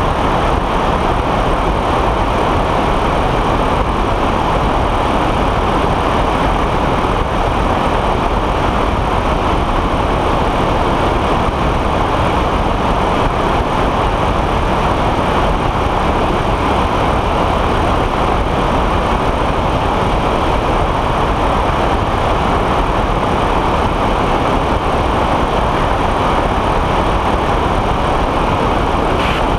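Steady, loud rush of airflow and engine noise from a weight-shift microlight trike in level cruise. The pusher engine and propeller run at constant power, and the wind rushes over the wing-mounted camera.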